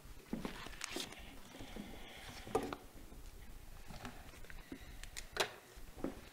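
Footsteps and scattered small knocks and rustles as a person arrives at a lectern and handles things on it, picked up by the lectern microphone; the loudest knock comes about five seconds in.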